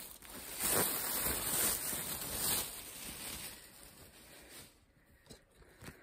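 Thin plastic shopping bag rustling in several swells as a plush toy is pulled out of it, dying away about four and a half seconds in, followed by a few faint taps.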